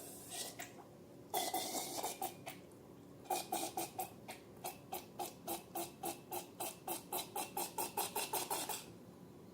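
Slime being squeezed and worked by hand: a brief run of wet clicks, then a fast, even series of squelching clicks, about four or five a second, for roughly five seconds.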